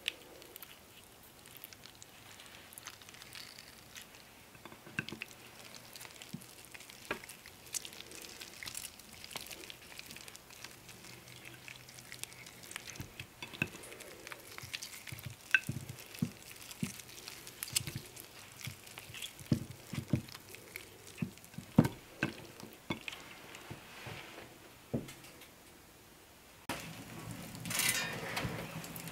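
Soft wet squishing and small ticks of hands squeezing raw sausage meat along a filled casing and twisting it off into links. Near the end this gives way to a log fire crackling and snapping in an open hearth.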